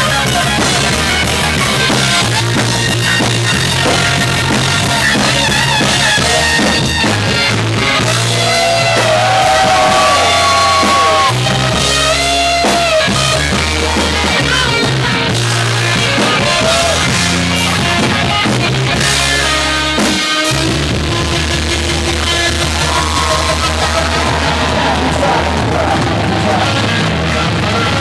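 Live reggae-rock band playing loud and steady: electric guitar, drum kit and bass, with a melody line gliding over steady, changing bass notes.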